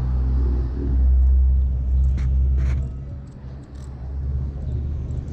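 Low engine rumble of a motor vehicle on the street, fading away about three seconds in, with two short clicks near the middle.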